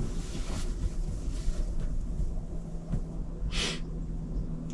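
A person's short, sharp breath, like a sniff, close to the microphone about three and a half seconds in, over a steady low hum.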